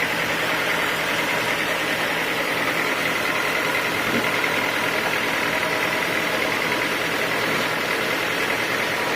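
Sawmill machinery running steadily at an even pitch, with no change in load.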